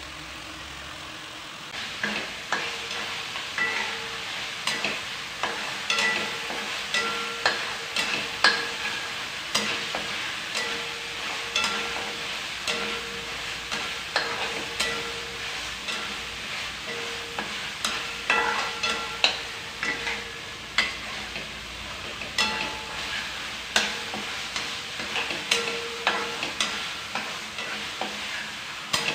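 Spatula scraping and knocking against a wok as ground spice paste with lemongrass fries and sizzles in oil, stirred over and over with strokes about once or twice a second. The stirring starts about two seconds in.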